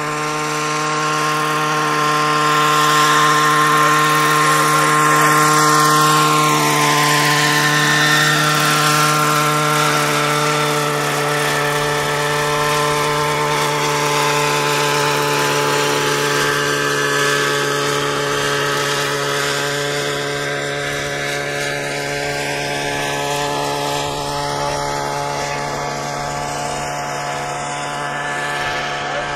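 Scale radio-controlled Bell 47 model helicopter in flight: a steady, even-pitched hum of its motor and rotor, loudest a few seconds in and fading slightly as it moves away.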